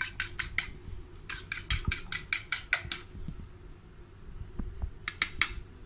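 A fork beating a raw egg in a ceramic bowl: quick clicks of the tines against the bowl, about six a second. They stop for about two seconds in the middle, then a few more come near the end.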